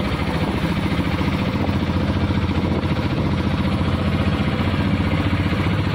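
Engine of a road vehicle running steadily under way, with a fast, even pulsing.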